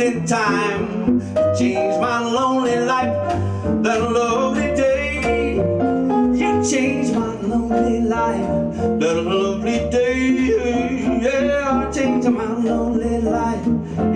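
Live small-group swing jazz: a male voice singing without words, in scat style, over piano, guitar and bass.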